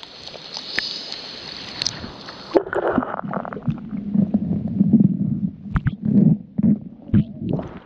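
River water rushing and splashing, then, a few seconds in, the sound turns muffled as the camera goes under the surface: a low gurgling rumble of water against the camera housing, with scattered knocks.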